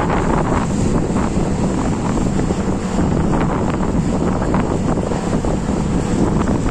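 Steady wind buffeting the microphone on the open steel deck of a work barge at sea, with the wash of choppy water alongside.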